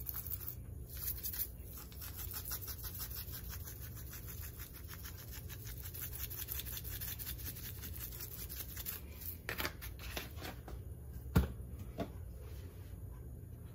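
Onion powder being shaken from a spice shaker jar over raw chicken breasts: rapid rattling shakes that stop about nine seconds in. A few sharp clicks follow near the end, over a steady low hum.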